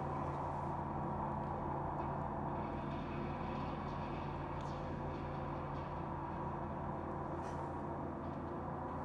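A steady low hum or drone made of several held low tones, with a few faint taps.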